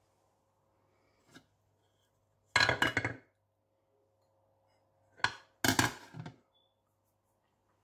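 Aluminium pot lid clattering on a rice handi, taken off and put back on. It comes in two short bursts of metal rattling: one about two and a half seconds in, and a knock followed by a longer rattle about five seconds in.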